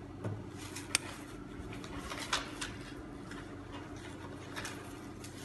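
A few light clicks and taps from a bowl being handled while batter is poured into an electric cake maker's mould, over a steady low hum.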